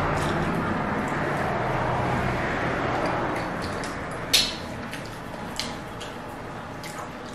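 Eating sounds from two people eating fufu and soup by hand: small wet clicks and smacks, with one sharp click about four and a half seconds in, over a steady background noise that fades after about four seconds.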